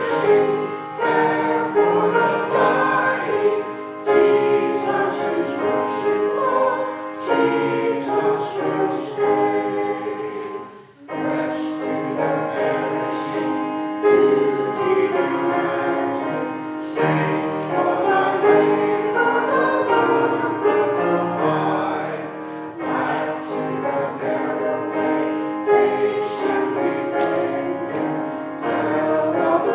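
Choir singing, with a short break in the music about eleven seconds in.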